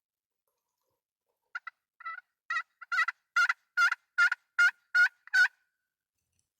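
Turkey yelping: a run of about a dozen short, two-part notes starting about a second and a half in, settling into an even pace of roughly two and a half a second and getting louder toward the end.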